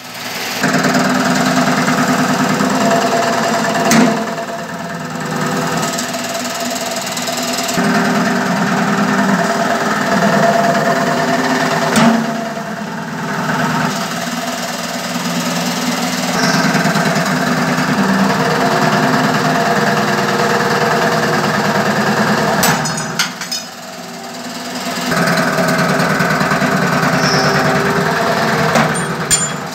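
Hydraulic angle cutting machine's hydraulic power pack running with a steady buzzing drone that eases off in level a few times, with a few sharp metallic knocks from the machine.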